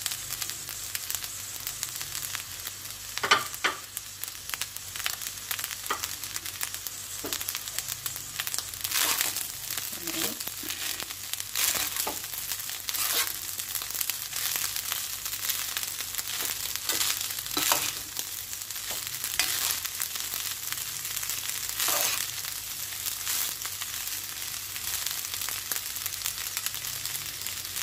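Nigerian fried rice sizzling steadily in a non-stick frying pan, with a metal spoon scraping and tossing through the rice every second or two.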